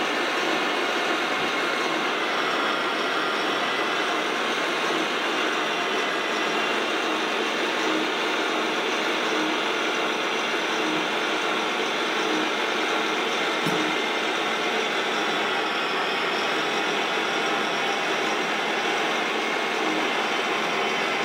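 Radio-controlled scale model Caterpillar D9 bulldozer crawling on its tracks: the steady mechanical running of its electric drive and tracks.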